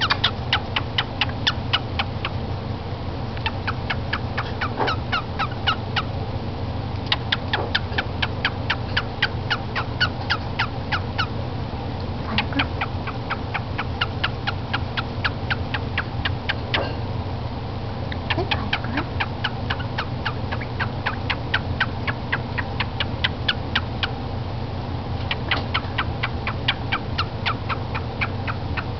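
Pet cockatiel making its kissing noises: runs of quick smacking clicks, about five a second, in bursts of a few seconds with short pauses between.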